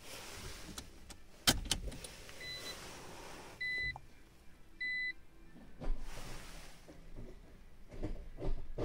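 Electric actuator motors of an MMT automated manual gearbox whirring in short runs and clicking while the clutch and gear-shift actuators are calibrated. The clicks come several times, the loudest about a second and a half in, and three short high beeps sound around the middle.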